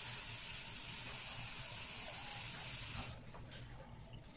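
Kitchen tap running steadily as spinach leaves are rinsed under the stream, a loud even hiss of water that stops abruptly about three seconds in.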